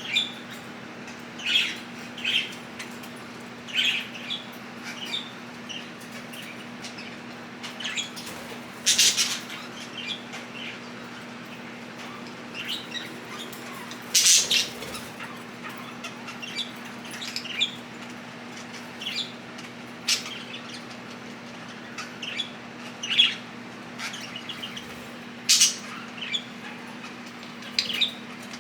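Budgerigars bathing: short chirps and tweets every second or so, with a few louder brief flurries of wings flapping in the bath water. A steady low hum runs underneath.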